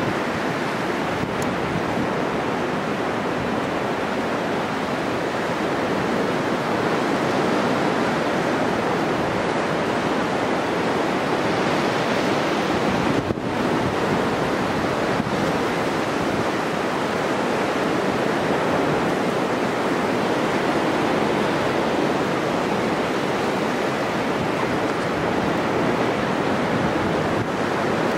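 Rough sea surf breaking and washing on a beach, a steady rushing noise of waves, with wind on the microphone.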